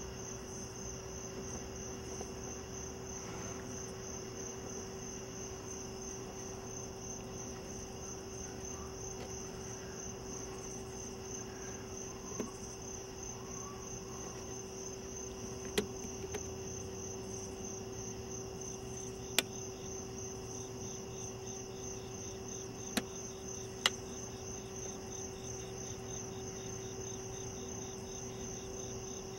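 Crickets chirping in a steady, fast, unbroken trill, with a second, lower-pitched insect trill coming in near the end. A steady low hum runs underneath, and a handful of sharp clicks sound in the second half.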